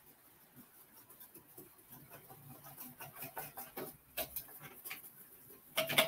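SmartAI robot vacuum manoeuvring across carpet into its charging dock: soft, irregular clicks and scratching that get busier about two seconds in, with a sharper click about four seconds in and another cluster near the end.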